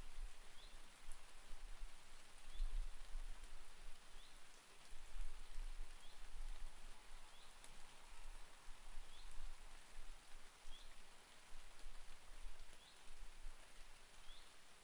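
Steady rain falling on garden leaves and patio paving, with a bird repeating a short high chirp about once a second. A low rumble comes and goes underneath.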